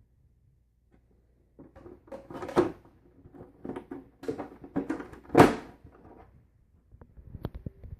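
A series of irregular knocks, clunks and rattles of hard objects being handled. It starts about a second and a half in, and the loudest knock comes about five and a half seconds in.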